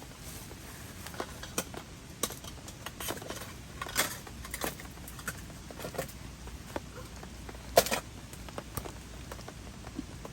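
Rain falling steadily, with irregular louder drops tapping; the two loudest taps come about four seconds in and just before eight seconds.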